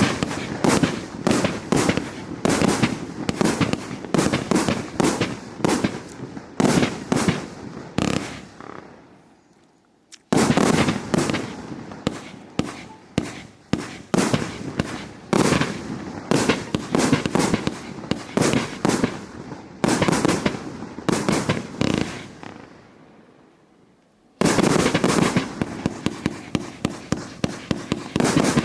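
108-shot fireworks cake with 30/36 mm tubes, firing shot after shot in quick succession, a few bangs a second with crackling tails. Twice the volley dies away to quiet and then starts again suddenly at full strength.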